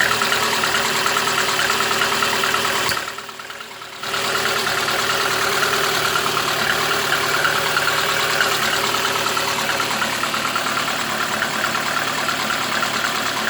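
VAZ-2115's four-cylinder petrol engine idling with a knock whose cause the owner cannot find; the cylinder head has been taken apart and shows no play or excess clearances. The sound drops away briefly about three seconds in, then carries on steadily.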